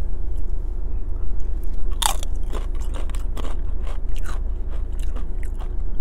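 Close-up crunching and chewing of a tortilla chip, with one loud crunch about two seconds in and smaller crunches after it, over a steady low rumble.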